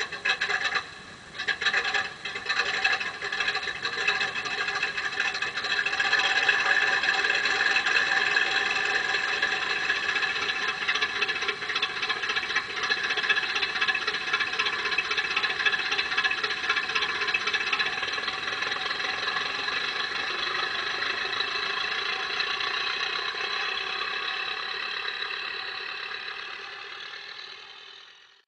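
Zimo sound decoder's recorded engine sound playing through the loudspeaker of a Bachmann Davenport garden-railway model locomotive, running steadily as it rolls along. A few clicks and rattles in the first two seconds; the sound grows over the first few seconds and fades out near the end.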